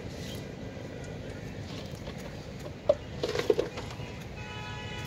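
Things being handled on a wooden boat's deck boards: a sharp knock about three seconds in, then a short clatter of knocks, over a steady low background rumble. A faint held tone comes in near the end.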